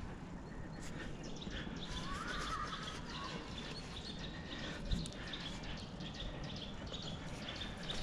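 Close handling noise of a climber moving up a tree: scuffs, taps and a knock about five seconds in from hands, shoes and clothing against bark and branches, with birds chirping in the background.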